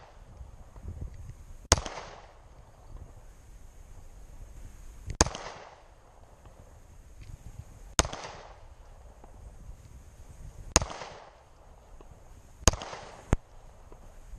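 Pistol shots fired singly: six shots a few seconds apart, the last two close together, each followed by a short echo.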